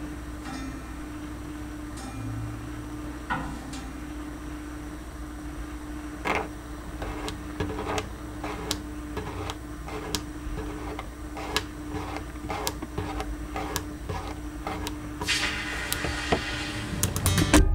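Experimental sound-piece texture: a steady hum with one held tone over a low rumble, overlaid by scattered sharp clicks and crackles that grow denser toward the end. A rush of hiss comes in near the end, then a loud cluster of clicks.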